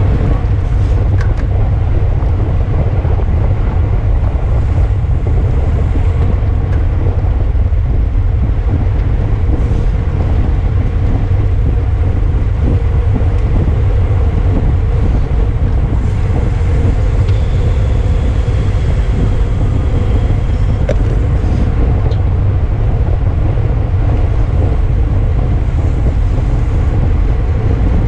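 Steady, heavy wind rumble on the microphone of a camera riding on a bicycle at race speed, with a deep, even roar and no letup.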